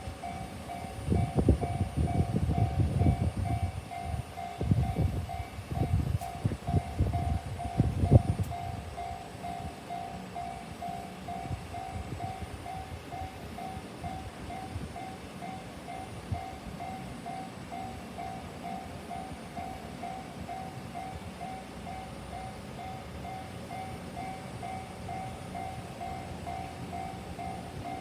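Japanese level-crossing alarm ringing, an even electronic ding about twice a second. For the first eight seconds or so a train runs over the crossing: a loud low rumble with a run of wheel knocks over the rail joints, which then dies away.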